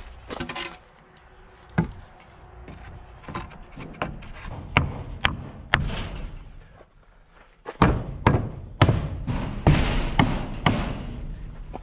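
A series of wooden knocks and thuds as a 2x4 board is worked into place against the garage door trim, scattered at first and coming thick and fast in the last few seconds.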